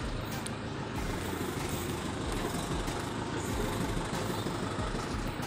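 Tractor engine running steadily as the tractor pulls out.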